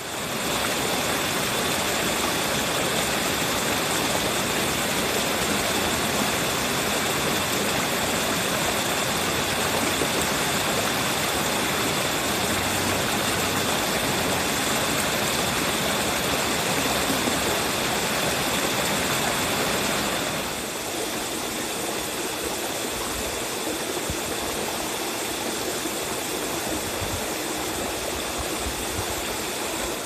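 Steady rushing of water from a mountain stream cascading over rocks, turning a little quieter about two-thirds of the way through.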